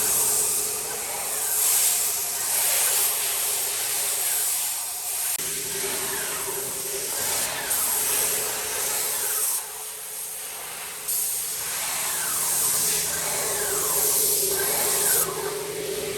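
Pressurised spray hissing in long bursts, cutting off briefly about two thirds of the way through and again near the end, over a steady machine hum.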